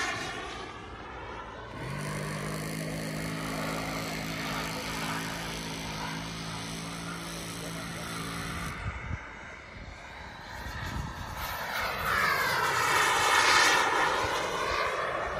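Radio-controlled model MB-339 jet flying past: its rushing whine sweeps in pitch as it passes, fading near the start and building to its loudest about 13 to 14 seconds in. From about 2 to 9 seconds a steady low hum starts and stops abruptly.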